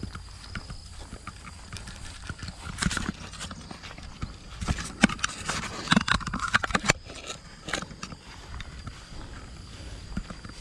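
Knocks, taps and scrapes of a camera being handled and repositioned, thickest from about three to seven seconds in, over a low steady rumble.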